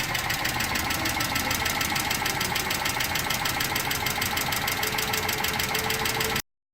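Gasoline car engine idling with a fast, even ticking knock, an abnormal noise that signals an internal engine fault. The sound cuts off suddenly near the end.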